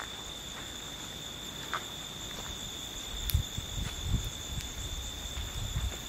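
Crickets trilling steadily in a high, continuous tone, with a few low bumps and a single sharp click a little past the middle.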